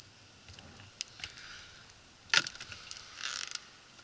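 Handling on a dock: a few faint clicks, then one sharp knock of a hard object a little over two seconds in, followed by a short rustle.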